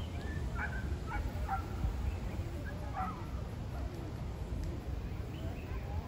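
Wild birds giving short, sharp calls, several in quick succession in the first half and fainter ones later, over a steady low rumble.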